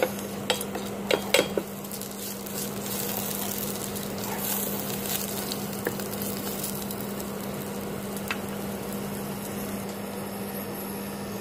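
Tempering of cumin, mustard seeds, red chili, curry leaves and garlic gently sizzling in a little oil on low heat in a stainless steel pressure cooker, with a wooden spatula stirring and knocking against the pot, the knocks mostly in the first two seconds. A steady low hum runs underneath.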